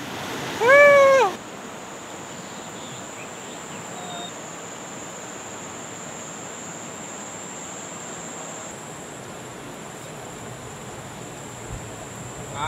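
Muddy flood water rushing, with one loud call about a second in that rises and falls in pitch. Then a steady, even rush of river flow with a faint high steady whine.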